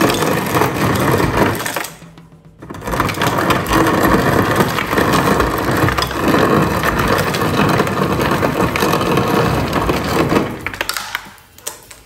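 An LG InstaView refrigerator's door dispenser making crushed ice: the ice crusher grinds and crushed ice pours into a glass dish held under the chute. It runs in two spells, with a brief break about two seconds in, and stops about ten and a half seconds in.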